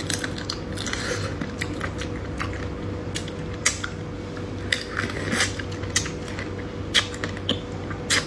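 Close-up eating of a sauced crab claw: irregular sharp cracks and clicks of shell between the teeth, with wet mouth sounds, over a steady low hum.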